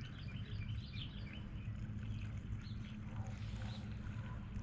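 Small birds chirping over and over, over a steady low hum.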